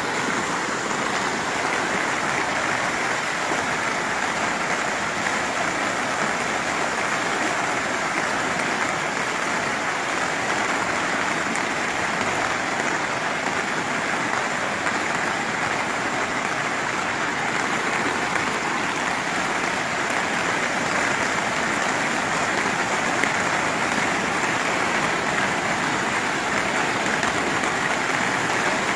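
Muddy floodwater rushing down a street as a fast torrent: a steady, unbroken rush of moving water.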